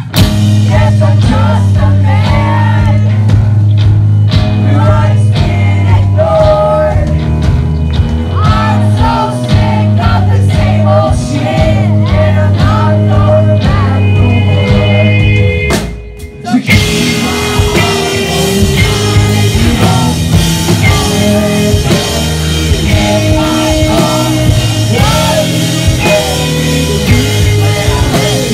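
Live rock band playing loudly, with bass guitar, electric guitar, drum kit and singing. About sixteen seconds in the band stops suddenly for a moment, then comes back in with a fuller, brighter sound.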